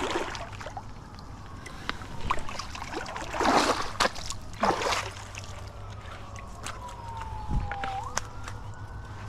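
Two splashes in the creek water about three and a half and four and a half seconds in, then a siren wailing in the background, its pitch sliding slowly down and jumping back up.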